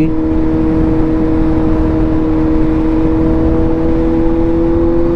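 Suzuki GSX-S750's inline-four engine pulling under steady throttle in fourth gear, its note holding level and creeping up only slightly as the bike gains speed. Wind rumble runs underneath.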